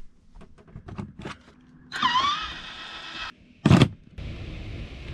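A few light clicks and taps from a hand handling fittings, a pitched tone that dips then rises for about a second, a single loud thump, then a steady hiss.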